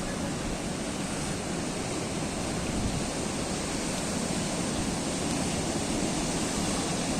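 Ocean waves breaking and washing against the shore, a steady rushing surf noise that swells slightly toward the end.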